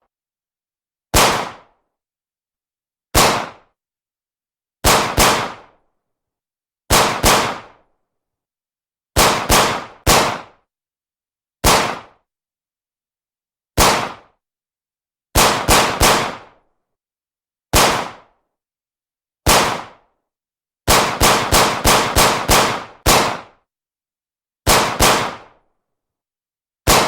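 Beretta 92F 9 mm semi-automatic pistol firing at an indoor range: single shots, pairs and one quick string of about seven, each crack followed by a short echo from the range, with silence between the groups.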